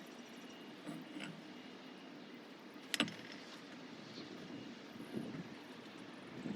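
A few faint knocks about a second in and one sharp click about three seconds in, over a steady background hum.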